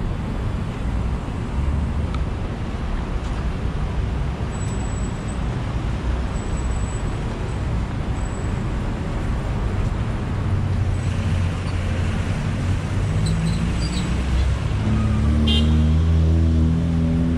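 Street traffic: a steady low rumble of passing vehicles, with an engine speeding up in steps over the last several seconds and a short horn toot near the end.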